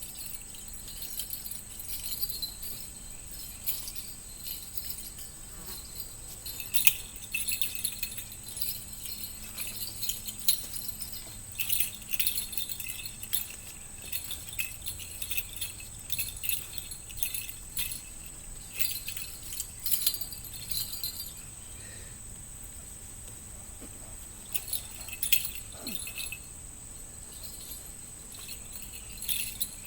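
Irregular light metallic jingling, coming and going throughout, over a steady high-pitched insect drone.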